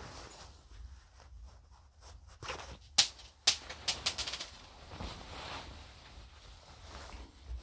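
Labcoat fabric rustling as it is handled, with a quick run of sharp snaps about three seconds in.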